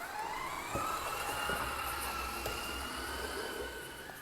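Small electric motor of a Playmobil remote-control toy car whining as the car drives. It is a thin, steady whine that rises in pitch at first and then holds, with a few light clicks.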